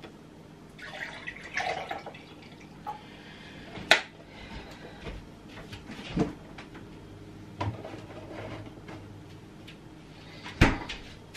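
Orange juice pouring briefly from a carton into a glass, followed by a few separate sharp knocks and clicks of kitchen handling: the carton set down and a fridge door opened and shut, the loudest knock near the end.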